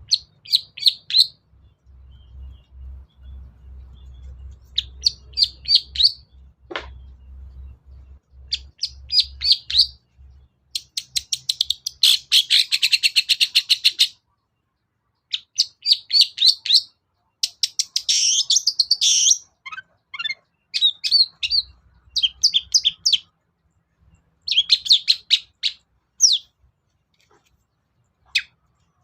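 Long-tailed shrike (cendet) singing: a string of short, rapid chattering phrases separated by brief pauses, with a dense harsh rattle about halfway through.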